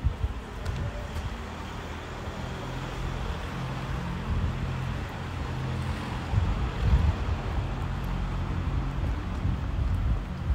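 City street traffic noise: a motor vehicle's engine running with a steady low hum, with a few low thumps.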